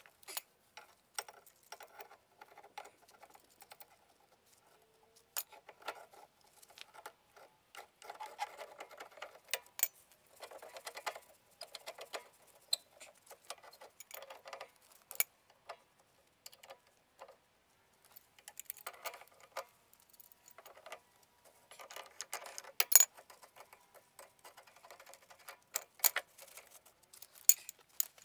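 Hand-tool work on a metal gas pipe: irregular clicks and taps broken by short bursts of scraping, with the sharpest clicks near the end.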